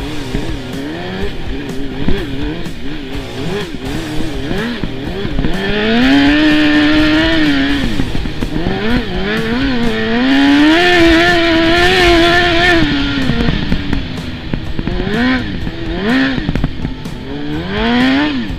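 600cc ATV engine under changing throttle: its pitch climbs and holds high about six seconds in and again from about ten to thirteen seconds, dropping back and rising in shorter revs between.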